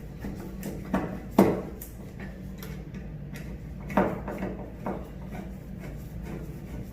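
Clicks and knocks of a paddle light switch being handled and screwed into its wall box. The sharpest come about a second in, again half a second later and about four seconds in, with faint ticking between.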